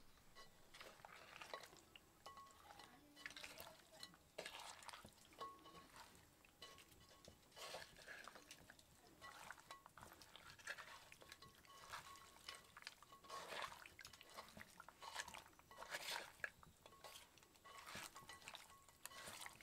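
Hands kneading and rubbing small fish in a clay bowl, making soft wet squelches and scrapes that come irregularly every second or so.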